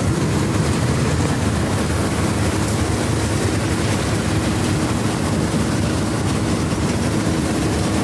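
Stationary Gillpreet 962 combine harvester running with its threshing and cleaning mechanism engaged: a steady, loud mechanical din of the engine, belts and threshing drum turning.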